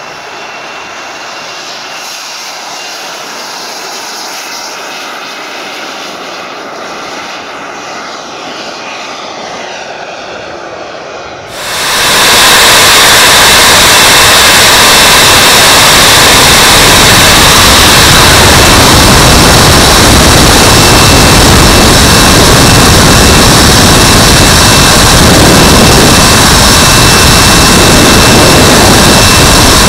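Four Wren Super Sport model jet turbines of a giant-scale VC-10 model running, at first heard at a distance as a steady whine. About eleven seconds in the sound cuts abruptly to a much louder, harsh roar with a steady high whistle, heard close up from a camera on the model as it takes off and climbs.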